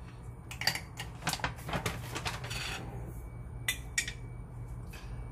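A series of light clicks and clinks: hard objects knocking together about ten times, a couple of them with a brief ring, and a short rustling scrape about two and a half seconds in.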